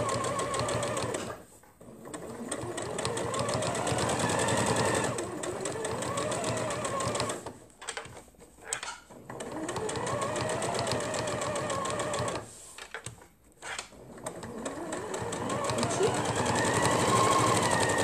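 Electric domestic sewing machine stitching through padded layers of fabric, its motor speeding up and slowing down. It stops briefly three times and starts again.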